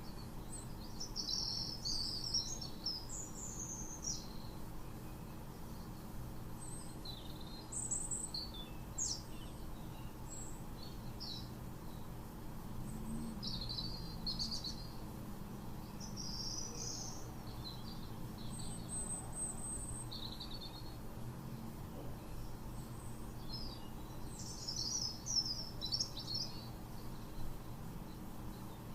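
Small birds chirping and singing in short scattered calls, over a faint steady low hum.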